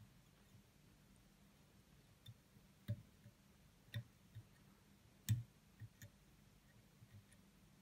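Faint, scattered clicks and taps from fly tying: thread is wrapped from a bobbin around a hook held in a vise to bind on bead-chain eyes. There are about eight irregular clicks, the sharpest about five seconds in.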